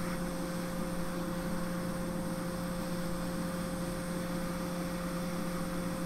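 Steady electrical hum from the repair bench, with two constant tones over an even background hiss.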